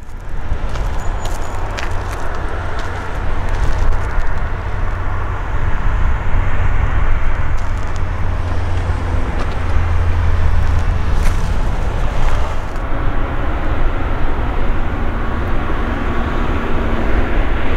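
Jet engines running at an airfield: a steady low rumble with a hiss over it.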